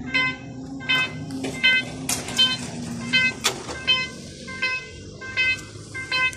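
Railway level-crossing warning bell ringing electronically in short, even dings about every three-quarters of a second, sounding while the barriers are down for an approaching train. A low steady hum runs under the first half, and there are two sharp knocks.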